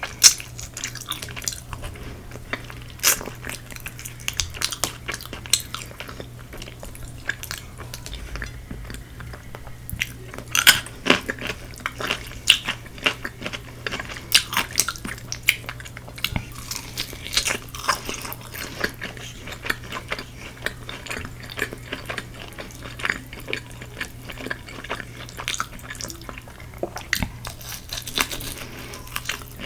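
Close-up eating of Korean fried chicken: crunchy bites and chewing in many irregular crisp clicks, with occasional clinks of tableware, over a steady low hum.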